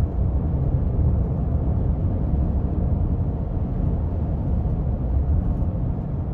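Steady road noise of a car driving on a highway, heard from inside the cabin: a low, even drone of tyres and engine with no distinct events.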